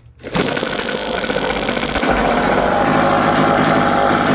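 Small two-stroke gas engine of a 1/5-scale RC car starting about a third of a second in and running steadily, growing louder about two seconds in.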